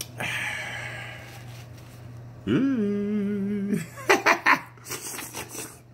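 A man eating slimy okra: a drawn-out sucking slurp, then a held "mmm" hum of enjoyment about two and a half seconds in, followed by a quick run of wet lip smacks.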